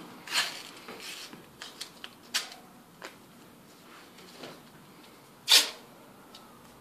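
White athletic tape being pulled off the roll and laid around an ankle: short rasping rips and a few light clicks, with one loud, sharp rip about five and a half seconds in.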